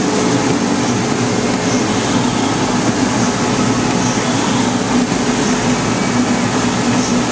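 Elektron flatbed CNC cutting table running, a steady drone as its gantry and tool head travel over a sheet of film.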